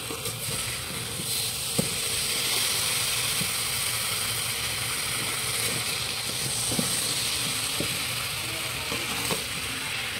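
A steady sizzle from a pan of wet amla and sugar cooking down for syrup, with a few light clicks and scrapes of a metal slotted spoon against the steel pan as the fruit is stirred slowly.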